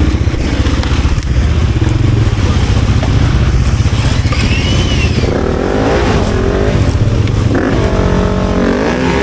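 Enduro motorcycle engine running, with the revs rising and falling several times in the second half.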